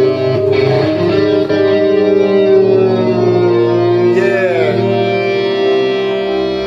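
Live instrumental music with electric guitar over held chords; a note bends downward about four seconds in.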